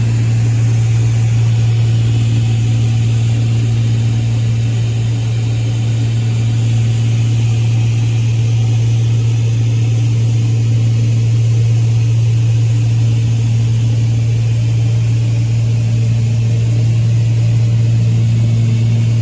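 Steady drone of a twin-engine Beechcraft's piston engines and propellers at cruise power, heard inside the cockpit, with a strong, unchanging low hum over a constant rush of noise.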